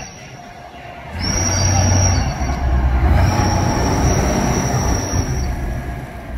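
Six-wheeled armoured personnel carrier driving past on a paved street: a deep engine and tyre rumble with a high steady whine over it, swelling about a second in as it comes close.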